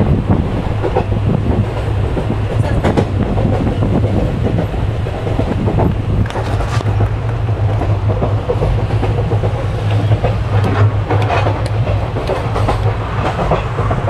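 Moving passenger train heard from inside the coach: a steady, loud rumble of the running gear, with scattered clacks and knocks of the wheels over the rails.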